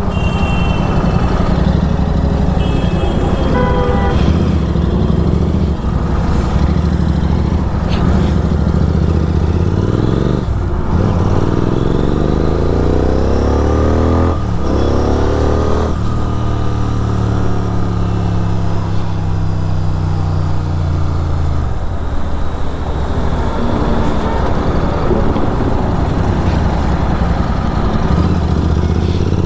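Superbike engine with an aftermarket exhaust running while riding. About ten seconds in the revs climb in a rising pitch, break off sharply, then fall away slowly.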